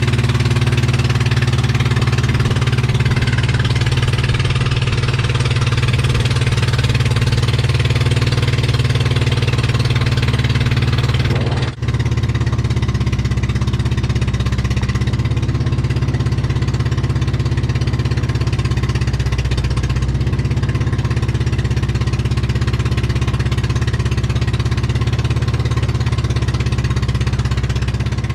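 A fishing boat's engine running steadily, a deep even drone, with one brief break about twelve seconds in.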